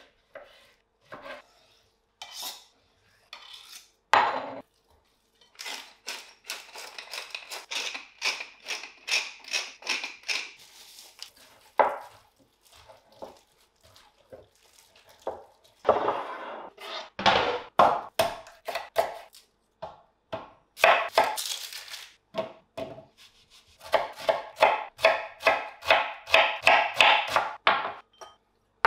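Kitchen knife work on plastic cutting boards, with clinks of glass bowls. Near the end come quick, even knife strokes, about five a second, as an onion is diced.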